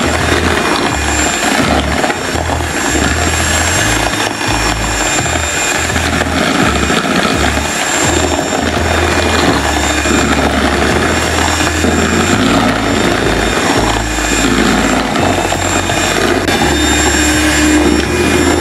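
Maspion electric hand mixer running steadily, its wire beaters whipping eggs and sugar for sponge cake batter, beaten until pale, thick and ribbon-forming.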